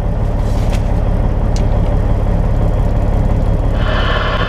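Semi truck's diesel engine idling, a steady low rumble heard inside the cab. A hiss comes in near the end.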